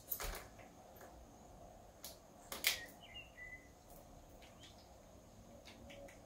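A few sharp taps and knocks, with short faint bird chirps a little after three seconds in, as a male common blackbird lands on a stone windowsill and picks at raisins.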